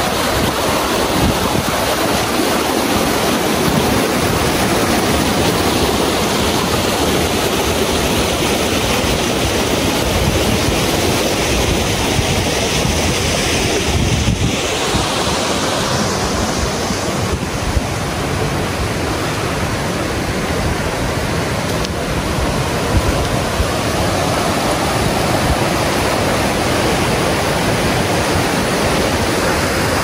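Steady, loud rushing noise with an uneven low rumble underneath, unbroken throughout.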